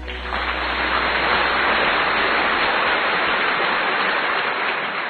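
A loud, steady, even hiss like static or rushing water, starting just as the song ends.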